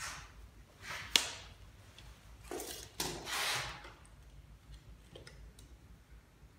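Handling noises: a sharp knock about a second in, then two scraping rubs around three seconds in.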